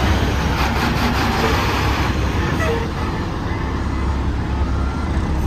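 Heavy loaded dump truck's diesel engine running with a steady low rumble, mixed with tyre and road noise as it drives on a dirt road.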